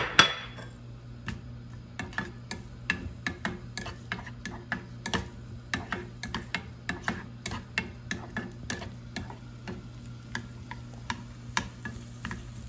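Chopped onion dropping into a small non-stick frying pan with one loud clatter, then a plastic slotted spatula stirring it, with irregular taps and scrapes against the pan two or three times a second.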